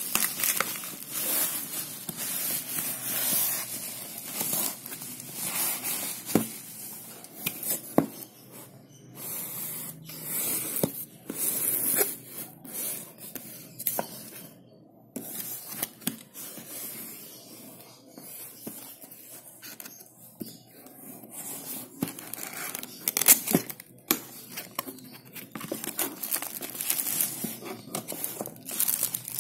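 Packaging being unwrapped by hand: irregular crinkling, rustling and tearing of plastic and paper, with a few sharp knocks.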